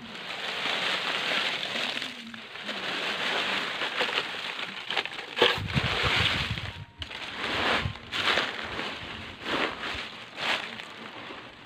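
Dry leaves rustling and crackling as they are tipped into a soil trench, with a heavier rush about halfway through as a container-load pours in, then irregular crunches as the leaves are trodden down.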